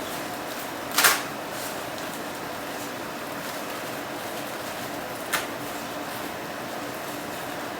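Steady fan-like hum in a small room, broken by two short sharp noises: a loud one about a second in and a softer one a little after five seconds.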